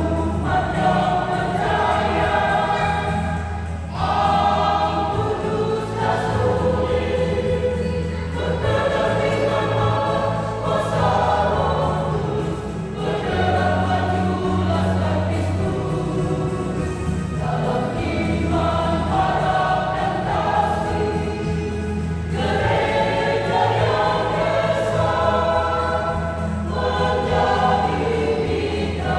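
Mixed vocal group of men and women singing a sacred song together in several parts, in phrases with short breaks between them.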